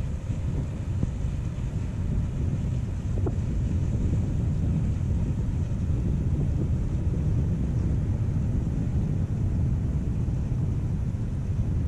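Wind buffeting the microphone, heard as a steady low rumble.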